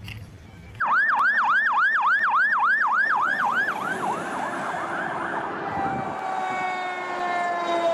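Fire engine siren in a fast yelp, about three and a half sweeps a second, starting about a second in. After about four seconds the yelp fades under a steady tone that slowly falls in pitch.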